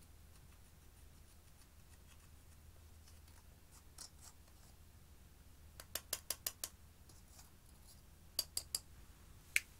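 A small metal tool scraping and crumbling pressed powder eyeshadow out of its plastic compact, with faint scratching, then sharp clicks as the metal knocks against the pan: a quick run of about five around six seconds in, three more a couple of seconds later, and one last loud one near the end.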